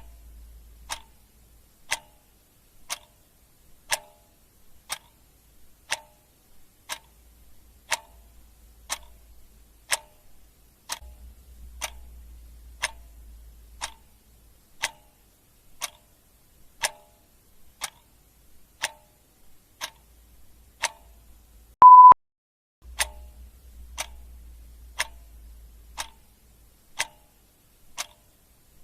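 Clock ticking sound effect, a sharp tick once a second. About three quarters of the way through, a single short high beep sounds, louder than the ticks.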